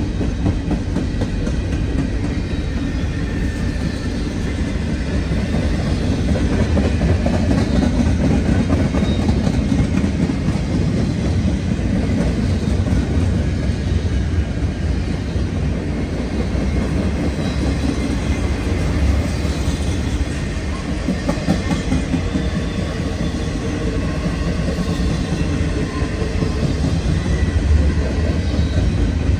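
Long freight train's cars rolling past close by, steel wheels clattering steadily over the rails.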